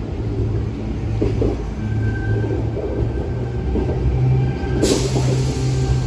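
Sydney Trains Tangara electric train running, a steady low rumble and hum with a faint high squeal. About five seconds in, a higher hiss joins it.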